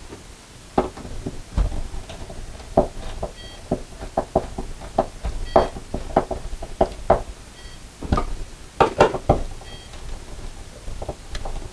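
A hand screwdriver driving screws to fix a metal closet-rod bracket to the wall: irregular clicks, scrapes and light knocks of the tool and bracket. A faint short electronic beep repeats about every two seconds.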